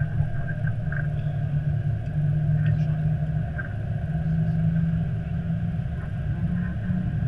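Steady low rumble inside an Airbus A320 cockpit as the airliner rolls along the runway after landing, with a faint steady high tone above it.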